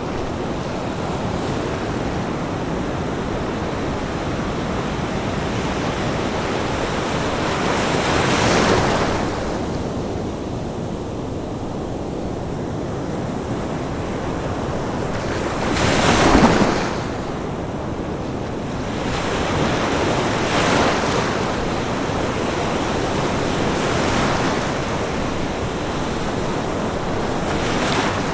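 Ocean waves crashing on a beach over a steady wash of surf. Waves break every four to eight seconds, the loudest about sixteen seconds in.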